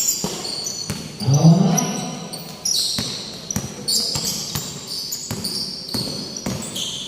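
Basketball being dribbled and bounced on a gym floor during play, with sneakers squeaking on the court and a loud shout about a second in.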